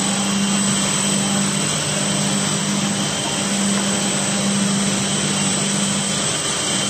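F371 soft-forming edgebanding machine running, a steady drone with a low hum.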